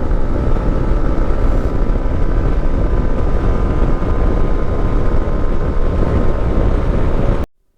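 Wind buffeting the microphone of a camera on a moving motorcycle, with the bike's engine humming steadily underneath. It cuts off suddenly near the end.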